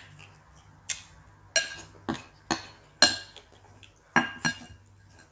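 Spoon striking and scraping a plate of food while eating fast: about eight sharp clinks in quick succession, each ringing briefly.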